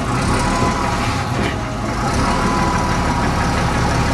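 A double-decker bus's diesel engine running steadily as the bus moves slowly past at close range.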